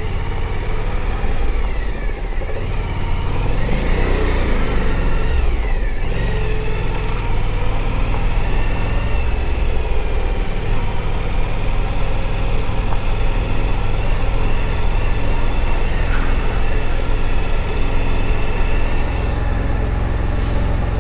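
Suzuki V-Strom adventure motorcycle's V-twin engine running as it is ridden over a rocky gravel road, the revs rising and falling a few seconds in, then holding fairly steady.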